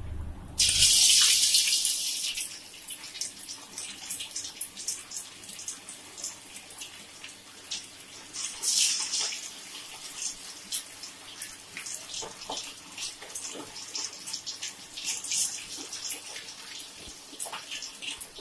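Marinated quail pieces going into hot oil in a steel kadai: a loud sizzle about half a second in, then steady crackling and popping of deep-frying, surging again about nine seconds in.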